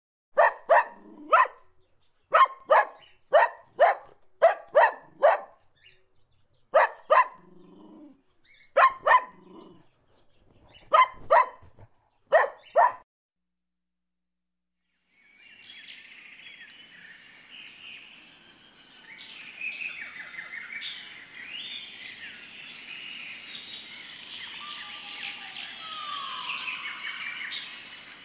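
Greylag geese honking: loud calls in quick runs of two to four, repeated for about thirteen seconds. After a short gap, a flock of helmeted guineafowl chattering with many overlapping calls, over a steady high-pitched whine.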